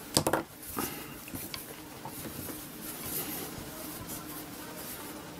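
Circular knitting needles and wool yarn being handled as the last stitches of a row are worked off, with one sharp click just after the start and faint ticks and rustles after it.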